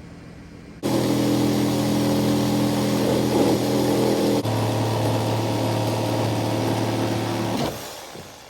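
A motor running steadily, starting suddenly, shifting to a lower, steadier pitch about halfway through, then dying away near the end.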